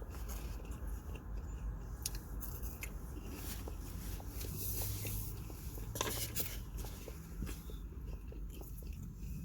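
Close-up chewing and biting of fast food, with scattered small crunches and mouth clicks, over a low steady hum.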